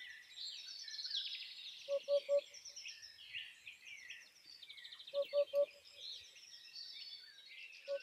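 Birdsong: many small birds chirping and trilling together, with a low three-note hooting call that comes back about every three seconds and stands out as the loudest sound.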